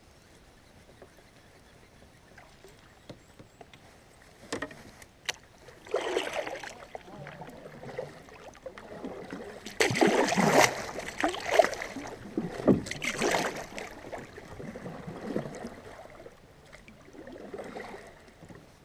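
Kayak paddle strokes splashing in the water, one every second or two, starting a few seconds in and loudest in the middle, with a couple of sharp knocks early on.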